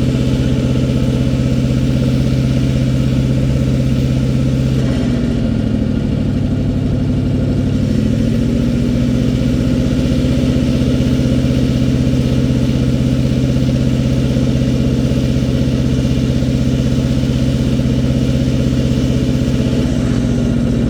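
Engine of an old International backhoe running steadily. Its pitch dips about five seconds in and comes back up about three seconds later.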